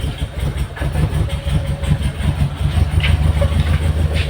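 Mitsubishi Galant GTI's 4G63 inline-four engine idling unevenly with a misfire, still cold after a hard start on flooded spark plugs.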